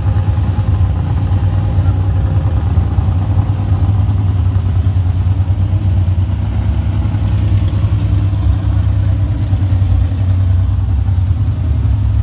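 A car engine idling with a steady, quickly pulsing low rumble.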